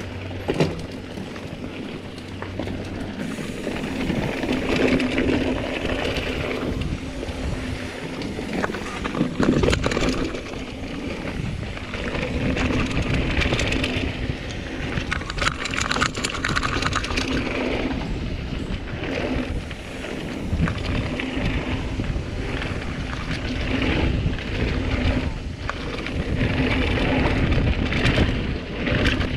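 Mountain bike riding fast down a dirt singletrack: steady wind buffeting the microphone over tyre rumble on packed dirt, with frequent knocks and rattles as the bike goes over bumps.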